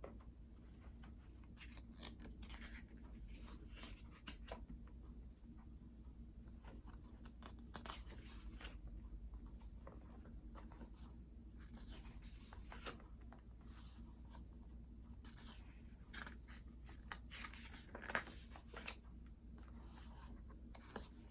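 Faint rustling and crinkling of paper and plastic wrapping as small items are handled and unwrapped, with scattered small clicks; the loudest crinkle comes about eighteen seconds in.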